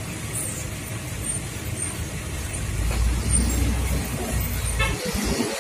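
Road traffic in slow city traffic: vehicle engines running with a low rumble that grows heavier about halfway through.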